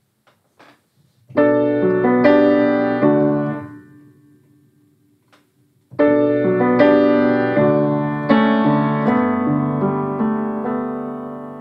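Knight upright piano played in chords: a short phrase about a second in that dies away, then a longer phrase from about six seconds in that slowly fades.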